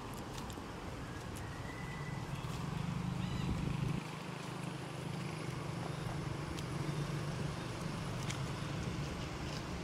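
A steady low engine hum, swelling and easing a little, with a few faint short high chirps and small clicks over it.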